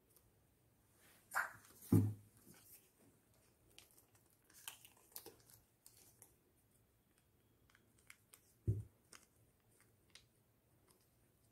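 Faint crinkling and rustling of a cut plastic food packet as it is handled and shaped into a flower by hand, with a couple of soft thumps.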